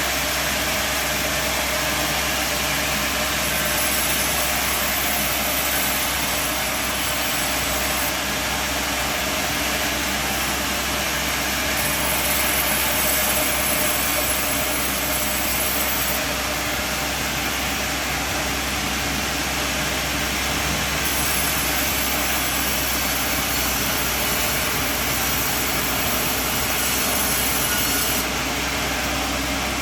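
Sawmill machine running steadily with a low hum, its high-pitched hiss brightening and fading in stretches of a few seconds.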